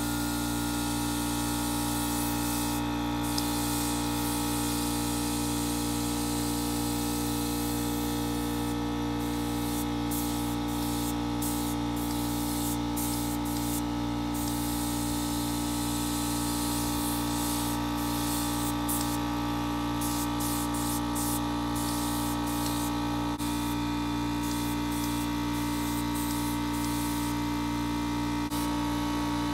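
Air-fed gravity-cup paint spray gun hissing as it sprays primer onto the truck cab's sheet metal, broken by many short pauses where the trigger is let off between passes. A steady hum runs underneath.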